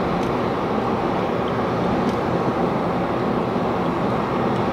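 Steady road and engine noise inside a car's cabin while cruising at motorway speed.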